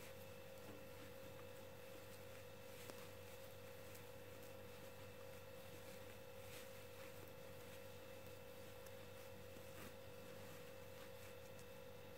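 Near silence with a faint, steady hum: one constant mid-pitched tone with no change.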